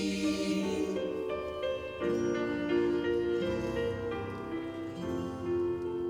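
A choir singing slow, held chords that move to new notes every second or so.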